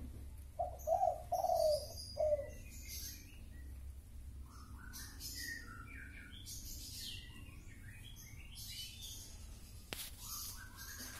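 Birds chirping, with many small high chirps throughout and three short, louder calls about a second in. A single sharp click comes near the end.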